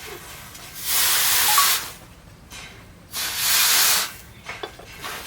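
Two bursts of steady hissing, each about a second long, the first about a second in and the second about three seconds in.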